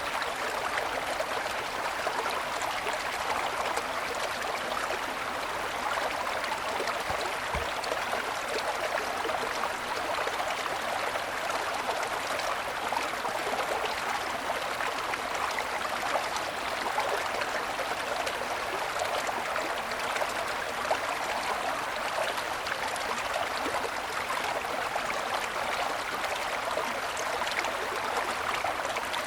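Mountain stream running steadily over snow-covered stones, a continuous rushing and babbling.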